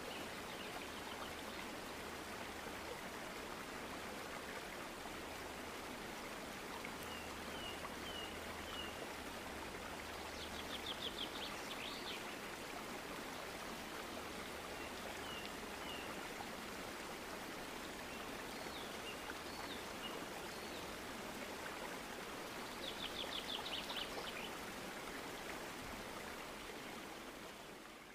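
Steady running-water noise, with small birds chirping and trilling in short bursts every few seconds. The sound fades out at the end.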